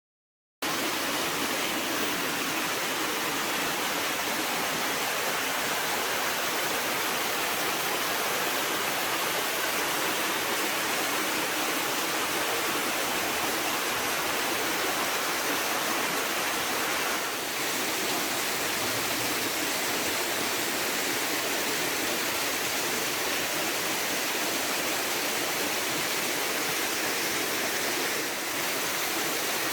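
Steady rush of flowing water that cuts in abruptly about half a second in, after a moment of dead silence.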